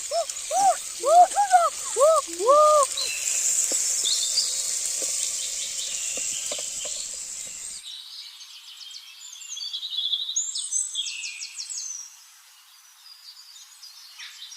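Outdoor forest ambience with birds calling: a quick series of repeated rising-and-falling calls in the first few seconds, over a steady high-pitched buzz, then scattered high chirps.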